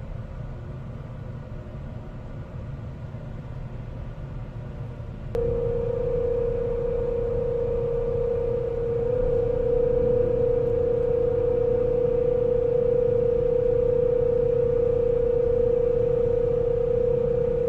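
Lifeboat davit winch motor switching on about five seconds in and running with a steady hum as it hoists the lifeboat, over a low rumble of the ship.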